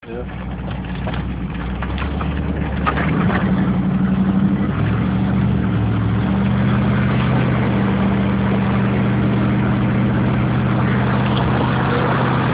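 1989 Chevrolet Camaro IROC-Z's V8 engine running, growing louder over the first few seconds and then holding a steady pitch.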